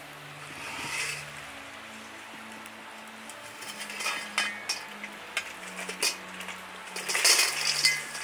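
Metal clinks and clanks of a charcoal chimney starter handled on a kettle grill's grate. Near the end, the chimney is tipped and burning lump charcoal tumbles out with a rattling rush.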